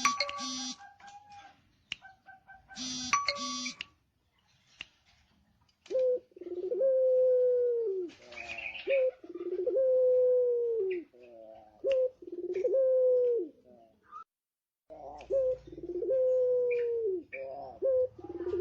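A male puter pelung (Barbary dove) cooing over and over, each long drawn coo sliding down in pitch at the end. A short pause comes about four seconds in and again near fourteen seconds. Near the start there are two brief bursts of a different buzzy sound with steady tones.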